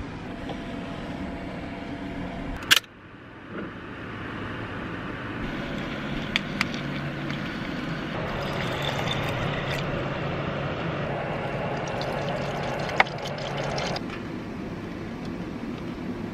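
Camp cooking on small gas stoves: a steady burner hiss with food sizzling, broken by a few short sharp metal clicks from chopsticks and pans. A loud sharp click about three seconds in is the loudest sound.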